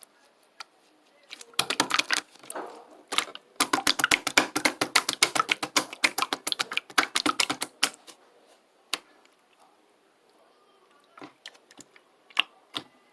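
Rapid clicking or tapping in quick runs, like typing. The clicks come densely for several seconds, then give way to a few separate clicks near the end.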